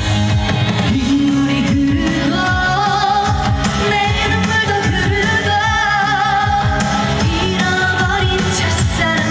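Trot song performed live over a loud band backing track, a female voice singing long held notes with vibrato.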